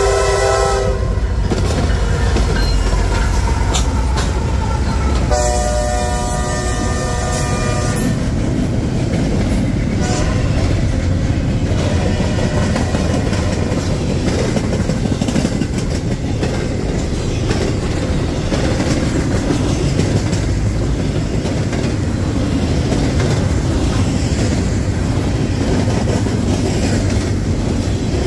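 Diesel freight train locomotive horn sounding two blasts, one ending about a second in and another from about 5 to 8 seconds. Under the horn and after it, the train runs by with a steady heavy rumble of engines and wheels on the rails.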